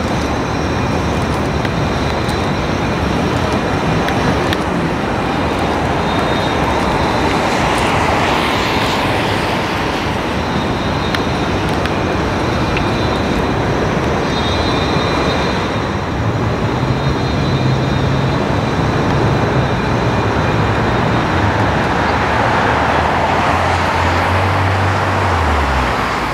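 Steady city traffic noise from cars on the surrounding streets, swelling as vehicles pass about a third of the way in and again near the end. Just before the end a passing vehicle's engine note drops in pitch as it goes by.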